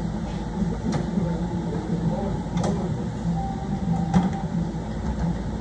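Steady hum of a car repair shop with three sharp clicks about a second and a half apart, from hand work on a car's front end.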